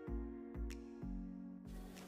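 Quiet background music: held chords over a soft, steady beat, with the chord changing about a second in.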